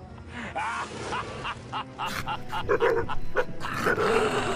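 A dog barking several times in short, scattered barks, alarm barks at a stuffed toy tiger.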